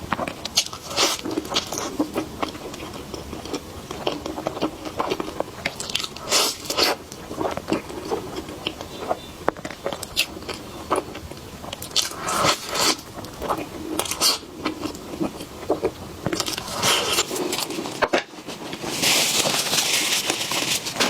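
Close-miked eating: repeated bites and chewing of a dessert, with sharp crunchy bites now and then. Near the end comes a loud, even noisy stretch of about two seconds.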